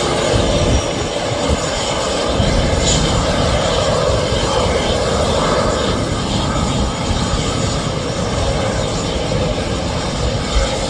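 Airbus A320's jet engines running at low taxi power as the airliner taxis slowly: a steady rushing whine with an uneven low rumble underneath.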